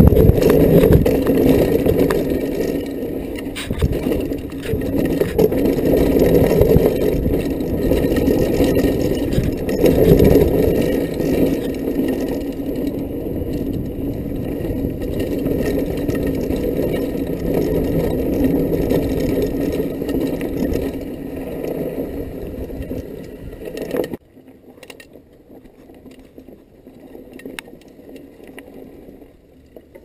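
A mountain bike ridden fast down a dirt trail: rushing noise and the rattle and scrape of the bike and tyres over rough ground, with knocks from bumps. About 24 seconds in the noise drops off suddenly to a much quieter rattle.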